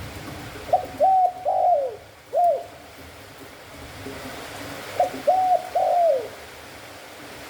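Spotted dove cooing: two phrases of short coos, the first starting under a second in and the second about five seconds in, each with a longer coo that falls in pitch.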